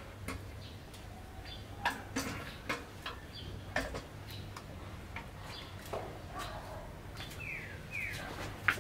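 Scattered light metal clicks and knocks as a steel motorcycle frame is handled and set down over the engine, with two short falling chirps near the end.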